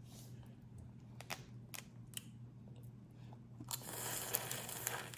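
Boiled crawfish shells being cracked and peeled by hand: a few sharp cracks, then a longer rustling crunch about three and a half seconds in.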